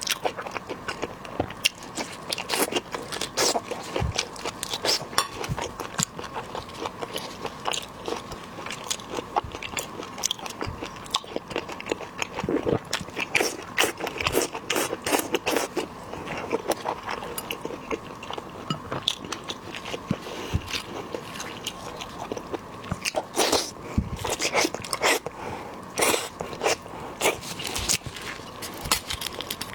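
Close-miked eating of shellfish: shrimp shells cracking and crunching with chewing, a dense, irregular run of sharp clicks and cracks.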